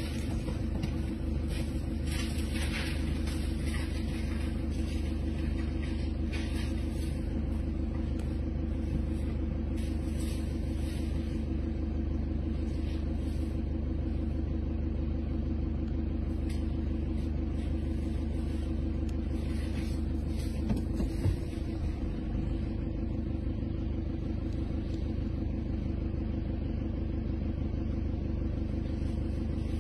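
Vehicle engine idling steadily, heard from inside the cab, with a brief knock about twenty-one seconds in.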